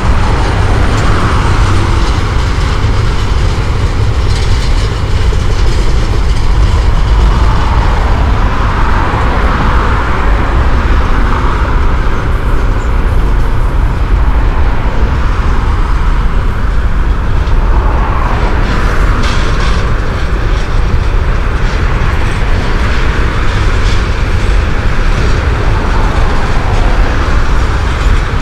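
CSX double-stack intermodal freight train rolling past, a steady rumble and clatter of container cars' wheels on the rails.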